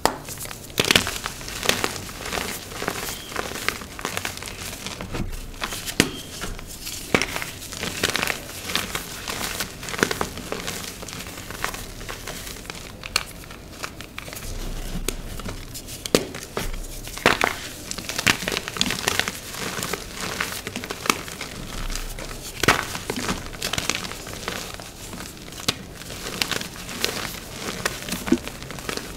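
Dyed, reformed gym chalk being crushed and crumbled: a dry, crunchy crackling throughout, with sharper cracks every second or two.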